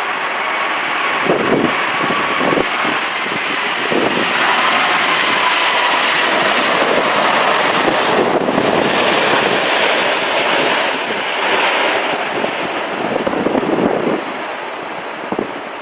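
Jet airliner landing in a storm crosswind: its engine noise swells for several seconds and fades away near the end, with a faint whine over it. Gusting wind buffets the microphone.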